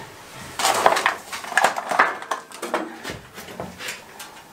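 Irregular metal scraping and clattering at a coal-fired steam boiler's furnace front, as iron fittings, tools and coal are handled on the stokehold floor. The scrapes come thickest in the first half and thin out after.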